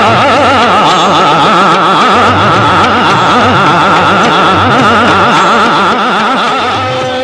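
Indian classical-style film music: the closing passage, with rapid rippling melodic runs over drum beats, starting to fade out near the end.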